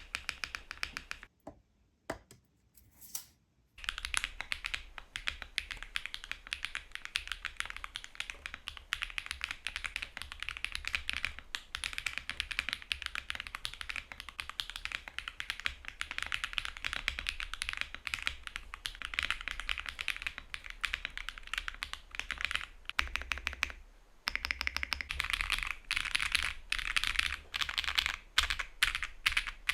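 Typing on stock, factory-lubed HMX Gravel mechanical keyboard switches in a Luminkey65 with an FR4 plate, GMK Dandy R2 keycaps and no foam: a fast, continuous stream of clacky keystrokes. A brief burst of typing opens, then there is a pause of about two seconds, and the typing runs on with one short break near the end.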